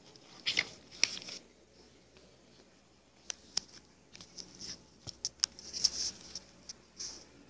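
Small handling noises: scattered sharp clicks and brief scratchy rustles, loudest about a second in and again near the end.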